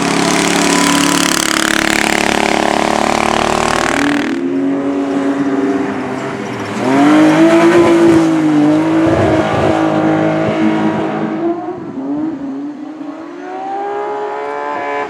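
Car engine at high revs under a loud rushing noise for about four seconds, then revving up and down repeatedly as the car works its way around the loose cinder track.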